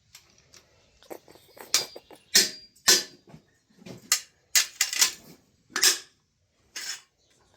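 Metal clinks and ratchet clicks from a ratchet wrench being worked on an engine's cylinder-head bolts: about eight sharp, irregular strokes with short pauses between them.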